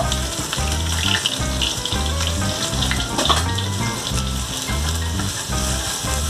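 Finely chopped onion sizzling in hot oil with cumin seeds in an earthenware pot, stirred with a wooden spatula. Background music with a steady low beat plays underneath.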